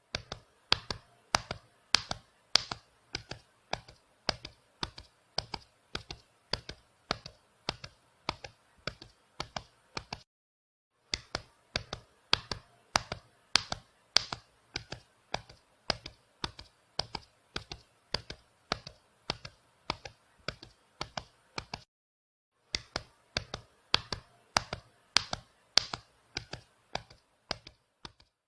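Fast heartbeat sound effect: steady double beats, about one and a half a second, each beat a sharp click rather than a soft thud. The beating stops briefly twice, about a third and two thirds of the way through, then picks up again.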